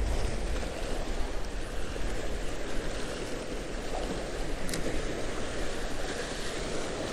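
Small ocean waves washing and breaking against the boulders of a rock jetty, a steady rushing hiss, with wind buffeting the microphone as a low rumble.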